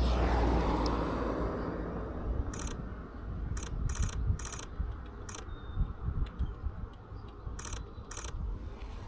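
Sony A1 mirrorless camera's shutter firing in about seven short rapid-fire bursts. A rushing noise fades over the first two seconds, with a low wind rumble on the microphone.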